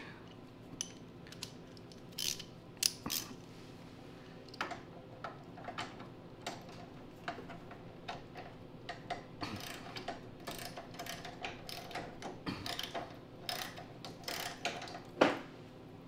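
A half-inch wrench working the float-bowl nut off the carburetor of a Tecumseh 10 HP snowblower engine: irregular metallic clicks and clinks, some in quick runs, with one louder clack near the end.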